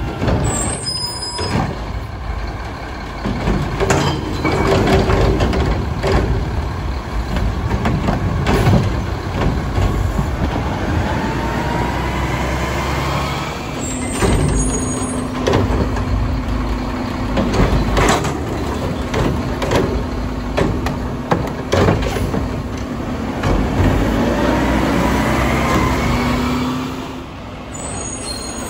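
Mack LEU garbage truck with a McNeilus Contender front-loader body working on route. Its diesel engine revs up several times, with repeated clanks and bangs of metal and air-brake hisses. A steady whine runs from about halfway through until near the end.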